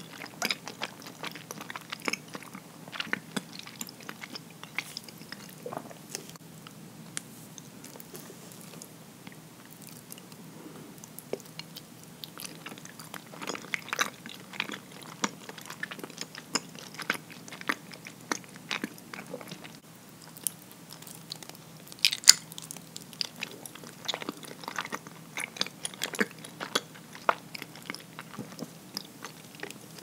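Close-miked chewing of soft, sticky nama habutae mochi, with many short wet mouth clicks and smacks. The loudest smack comes about 22 seconds in.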